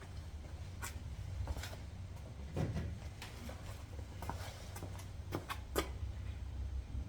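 Scattered light clicks and knocks of small garage-door-lock parts and tools being handled during installation, about nine over the stretch, two of them louder, over a steady low rumble.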